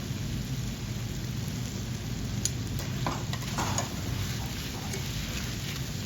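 Steady rushing background noise with a heavy low rumble, like rain or wind on the microphone, with a few faint clicks and knocks in the middle.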